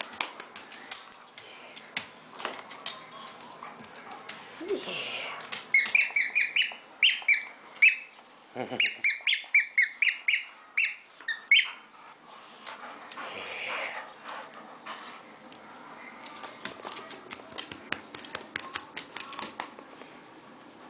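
A plush dog toy's squeaker squeaking as a Lab/Spaniel mix bites and tugs on it: a rapid run of a dozen or more short, high squeaks from about six seconds in to about twelve seconds. Scattered light clicks and scuffs come before and after.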